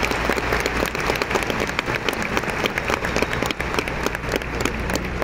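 Large concert audience applauding, many hands clapping at once, easing slightly near the end.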